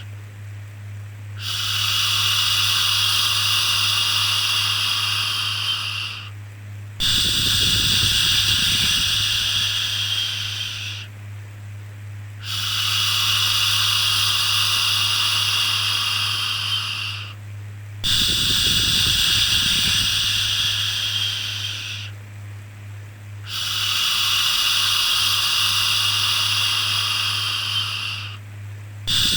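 Long, steady 'shhh' shushing sounds for soothing a baby, each lasting about four to five seconds and repeating every five to six seconds, with brief dips between them, over a continuous low hum.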